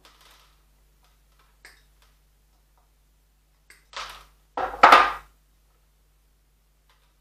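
Metal hand tool scraping and knocking against a glazed ceramic bonsai pot and its soil to work the root ball free: a few faint clicks, then a louder rasping scrape lasting about a second, roughly four to five seconds in.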